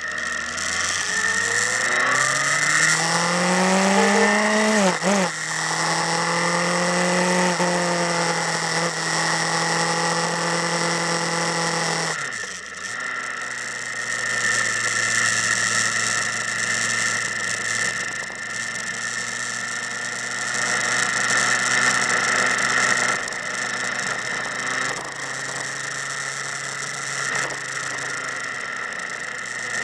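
A motorcycle engine accelerating, its pitch rising for about four seconds before a gear change about five seconds in. It then runs at a steady pitch, dips once more about twelve seconds in, and carries on steadily.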